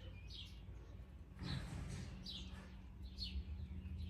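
A bird chirping over and over, short high calls that fall in pitch, about one a second, over a faint steady low hum. A brief rustling noise comes about a second and a half in.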